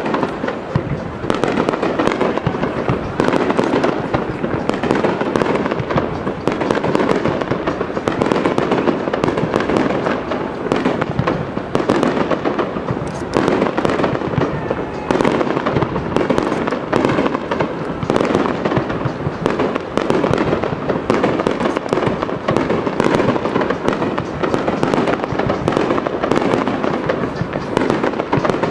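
Japanese aerial fireworks display: a continuous barrage of shell bursts and crackle, many bangs a second overlapping with no pause.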